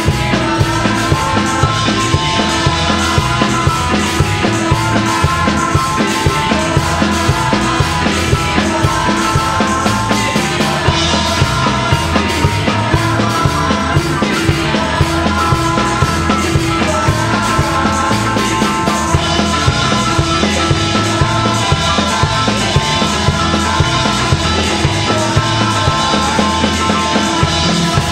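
Live worship song: women singing into microphones over loud amplified band accompaniment with a steady beat.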